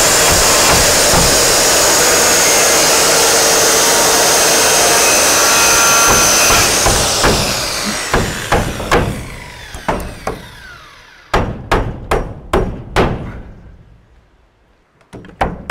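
DeWalt corded circular saw cutting through a wooden board at full speed with a steady whine, then released about six and a half seconds in and winding down. About eleven seconds in come a quick run of about six hammer blows driving a nail, and more hammer blows near the end.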